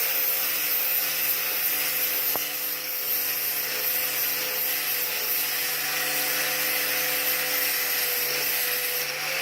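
4.5-inch angle grinder with a 60-grit flap wheel running at steady full speed, grinding heavy factory marks off the steel bolt-cutter handle. The motor keeps a constant whine under a coarse grinding hiss and cuts off suddenly near the end.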